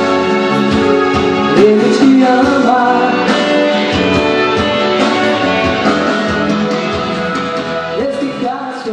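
Music: the instrumental close of a romantic pop ballad, with guitar and strings, tapering off near the end.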